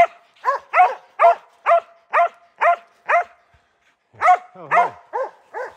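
West Siberian laika barking up at a bear treed above it, a tree-bark. The short barks come at about two a second, with a brief pause about three and a half seconds in before the barking resumes.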